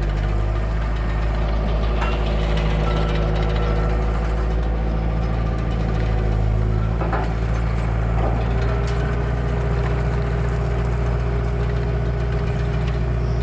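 Heavy diesel engine of a work vehicle running steadily at a low, even speed, its pitch shifting slightly about halfway through, with a few faint knocks.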